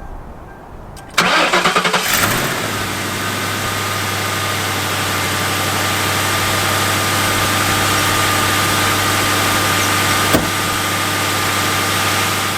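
Ford Crown Victoria Police Interceptor's 4.6-litre V8 cranking and catching about a second in, then settling into a steady idle with a steady high whine over it, on new spark plugs and coil packs. A single sharp click sounds near the end.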